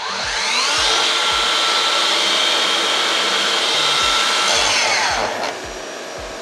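Makita 40V 12-inch cordless mitre saw run free with no cut: the blade motor winds up over about a second, runs steady, then winds down about five seconds in. A Makita VC4210MX2 M-class dust extractor, started automatically through its wireless link with the saw, runs with it and keeps running steadily after the saw has stopped.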